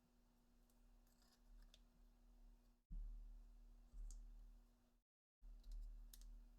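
Near silence: a faint steady electrical hum with a few small clicks of handling. It drops out completely for a moment at an edit.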